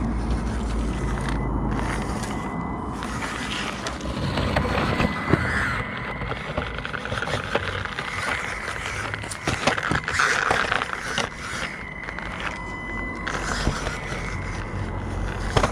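Panda Hobby Tetra X2 1/18 mini RC crawler driving over stony rubble: a thin electric motor whine that comes and goes, over continuous crunching and clicking of small tyres on gravel.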